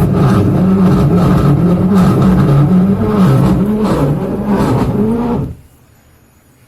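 Vise VP85SA501G washing machine running loudly with a wavering hum, stopping abruptly about five and a half seconds in. The noise comes from a failing gearbox.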